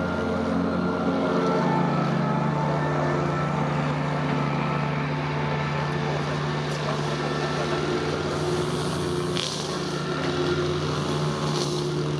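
A steady engine hum that holds one pitch throughout.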